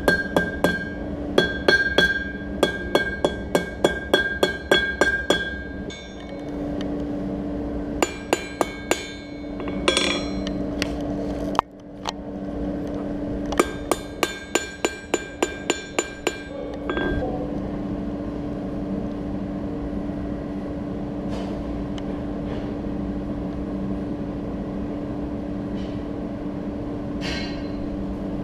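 Blacksmith's hammer striking hot iron on an anvil in quick runs of about three blows a second, each blow leaving a ringing anvil tone. There are three such runs, the last ending a little past halfway, after which only a steady low hum is left.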